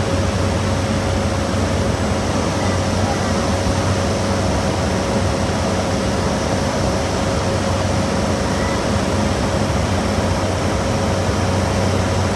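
Cessna Caravan's single Pratt & Whitney PT6A turboprop engine and propeller running steadily on final approach, heard from inside the cockpit as a loud, even drone with a steady hum.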